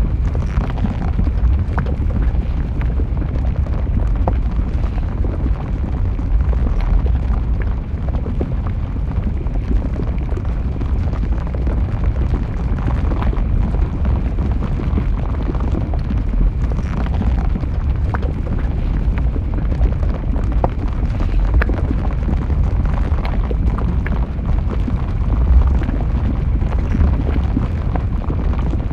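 Lava flowing down a volcano slope: a steady deep rumble with many small crackles and pops scattered throughout.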